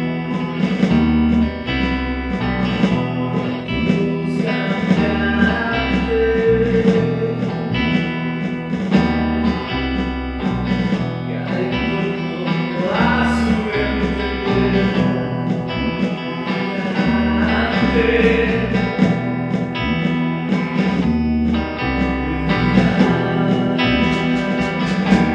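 Recorded rock music by a band: guitar over a repeating bass line and a steady beat, with a rising guitar glide about halfway through.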